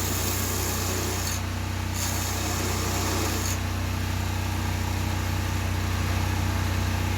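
Bench chainsaw-chain sharpening grinder running with a steady motor hum, its grinding wheel hissing against the cutters in two spells during the first few seconds. The wheel is getting worn out.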